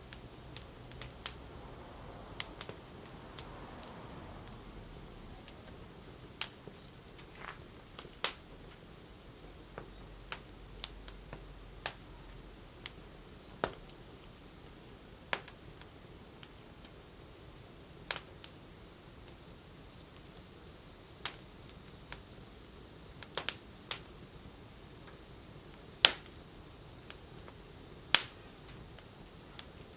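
Wood fire crackling with sharp, irregular pops, the two loudest near the end, over a steady high-pitched insect trill.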